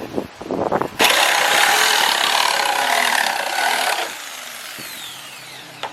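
A power tool cutting into a thin plywood spacer, starting suddenly about a second in and running loud for about three seconds, then its motor winding down with a falling whine once released.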